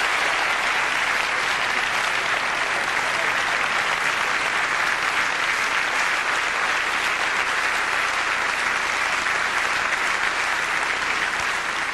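Auditorium audience applauding steadily, a sustained ovation after a talk.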